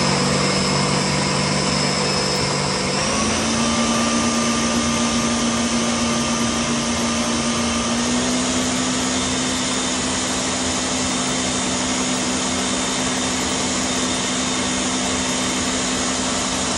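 Countertop blender running continuously, puréeing a full jar of chopped green sofrito vegetables. Its motor pitch steps up slightly about three seconds in and again around eight seconds.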